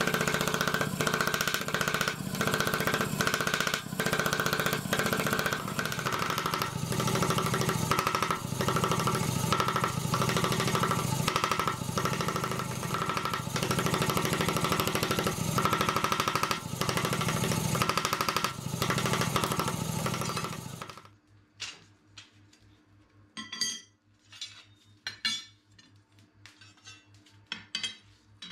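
Forge air blower running steadily with a hum and a whine while an iron bar heats in the fire, cutting off suddenly about 21 seconds in. Then a few light metallic clinks as flat iron bars are set down on the anvil.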